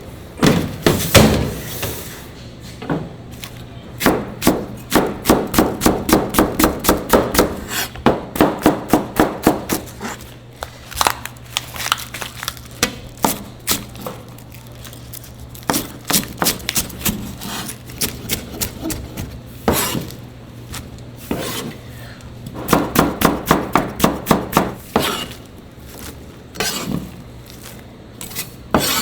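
Knife chopping on a wooden cutting board in quick, even strokes of about three to four a second, in several runs with pauses between, over a steady low hum.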